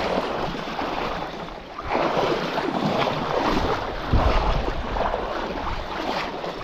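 Rushing water of a bouldery trout stream, a steady noisy flow. Wind buffets the microphone, strongest about four seconds in.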